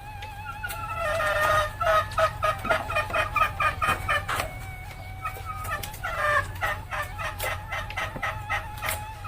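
Junglefowl hen cackling ('ngekek'): fast runs of repeated clucking notes, one starting about a second in and a second near the middle, over a steady high background tone. This is the call used as a lure to provoke other junglefowl into calling.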